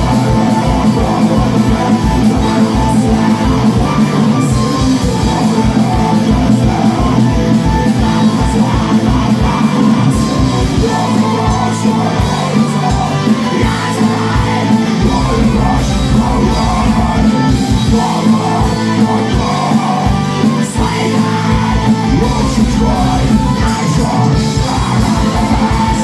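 Live metal band playing loud, with very fast kick-drum beats, guitars, flute, and shouted and sung vocals. The rapid kick drum drops out for a few seconds twice, about halfway through and again later.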